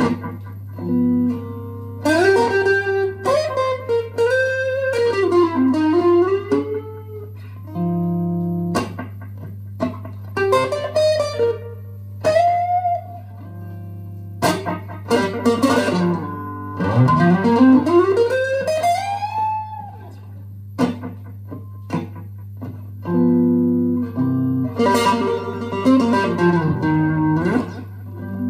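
Electric guitar, a red Stratocaster-style guitar through an amplifier, playing blues lead lines: single-note phrases with string bends and short gaps between them, with a long rising glide in pitch about seventeen seconds in. A steady low hum runs underneath.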